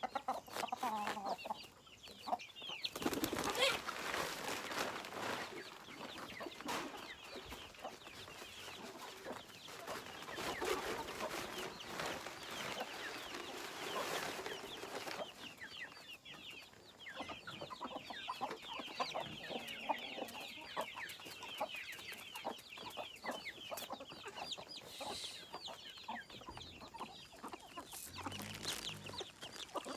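A flock of chickens clucking and chirping continuously, with bursts of rustling a few seconds in and again around the middle.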